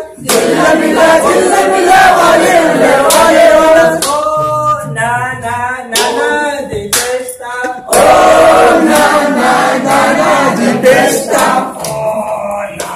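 A group of voices singing together in unison, in short phrases with brief breaks, with a few sharp knocks in between.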